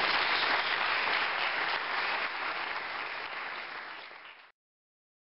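Congregation applauding, the clapping gradually dying down and then cut off abruptly about four and a half seconds in.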